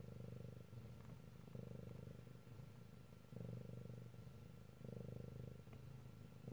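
Bengal cat purring quietly and steadily, the purr swelling and easing in turns with its breathing, every second or so.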